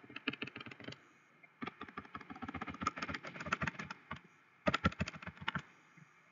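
Rapid tapping of a stylus on a drawing tablet while dotted lines are drawn dot by dot, about ten sharp taps a second in three runs with short pauses.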